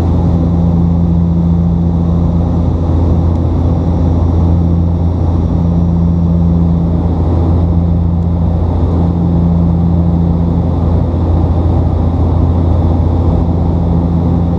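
Cabin drone of a Bombardier Dash 8 Q400's Pratt & Whitney PW150A turboprops and propellers in descent, heard from a seat beside the propeller. A steady low hum runs throughout, with a slightly higher tone that fades in and out every few seconds.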